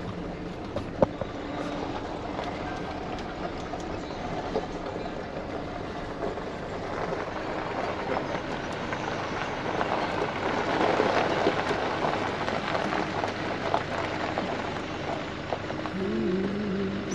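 Four-wheel drive rolling along a gravel road, heard from inside the cab: the tyres crunch and crackle over the gravel above the low running of the engine. The sound swells for a few seconds past the middle, and there is one sharp knock about a second in.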